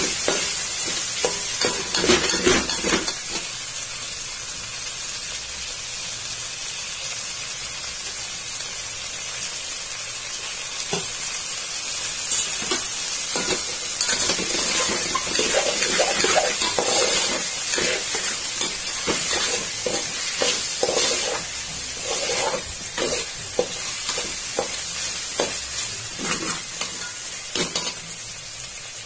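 Green peas frying in hot oil in a metal pot, sizzling steadily, while a metal spoon stirs them with frequent clinks and scrapes against the pot.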